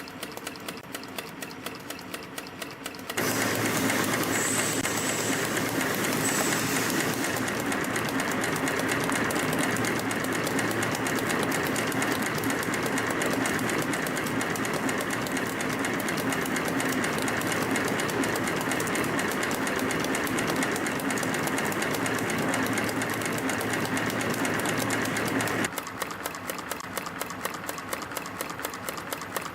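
CNC wire and strip stamping-forming machine running at high speed, punching and bending 0.8 mm wire into V-shaped spring clips with a fast, even mechanical clatter. It is lighter ticking at first, becomes much louder about three seconds in, and drops back to lighter ticking a few seconds before the end.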